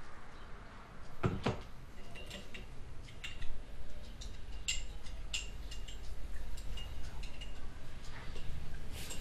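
Dishes and cutlery clinking: small ringing clinks of cups, spoons or glass, with two sharper knocks about a second in, over a low steady hum.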